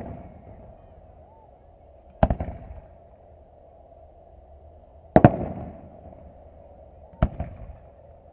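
Aerial firework shells bursting at a distance: three sharp booms about two to three seconds apart, each trailing off in a rolling echo.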